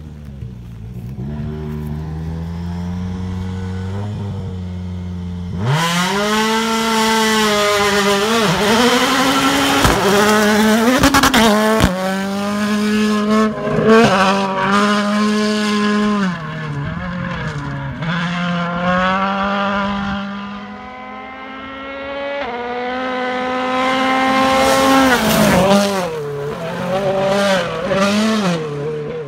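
A 2017 Ford Fiesta WRC rally car's turbocharged four-cylinder engine revving hard at speed. The pitch climbs and drops repeatedly through gear changes. It gets much louder about six seconds in, with a few sharp cracks around the middle.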